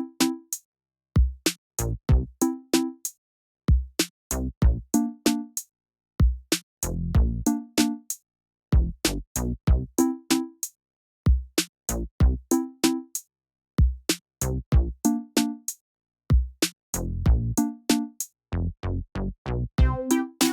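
Background music: a sparse electronic beat of drum-machine kicks and short plucked notes, with clean silence between hits.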